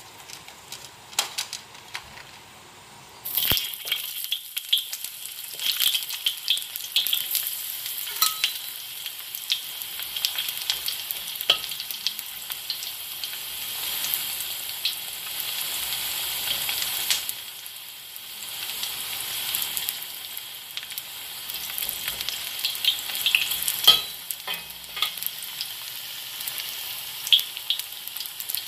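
Sliced ginger dropped into hot oil in a wok, setting off a sudden loud sizzle about three seconds in. It keeps sizzling and crackling, with scrapes and clicks of a spatula stirring the slices.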